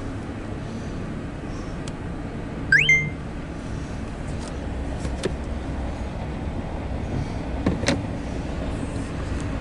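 Steady low vehicle rumble. A short, loud rising squeal comes about three seconds in, and a fainter one near eight seconds.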